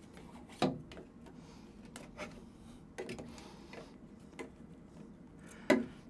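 Scattered light clicks and knocks of black plastic drain pipe and fittings being handled and pushed together on a bathtub's drain and overflow assembly, about five in all, the loudest near the end.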